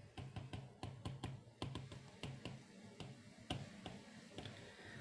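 Stylus tapping and clicking against a tablet screen while handwriting: a faint, irregular run of small ticks, several a second.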